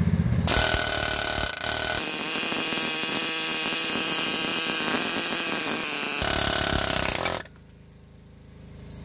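Pneumatic air hammer rattling against a stuck steel brake anchor pin in a semi-truck's brake spider, driving it out. It runs in rapid, continuous blows for about seven seconds, its tone changing a couple of seconds in, then stops.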